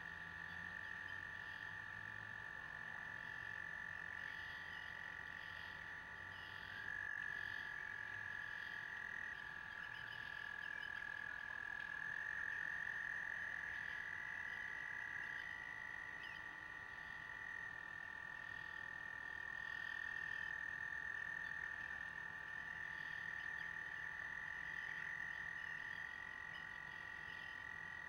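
A chorus of frogs trilling: long, steady, high trills that overlap and hand over to one another every few seconds at slightly different pitches, with a fainter pulsing chorus above them.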